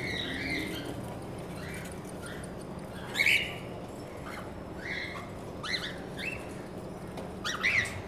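Cockatiels giving short, sharp chirping calls, about ten of them spread unevenly, the loudest about three seconds in.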